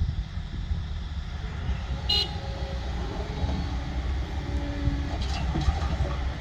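Dump truck's diesel engine running with a deep, steady rumble, with a brief high-pitched chirp about two seconds in.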